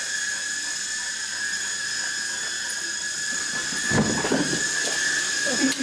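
Toy remote-control helicopter's small electric motor and rotors whining steadily at a high pitch. A brief thump about four seconds in.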